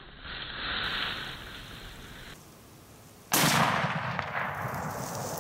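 A single .300 Winchester Magnum rifle shot about three seconds in: a sudden, loud crack followed by a long, slowly fading echo.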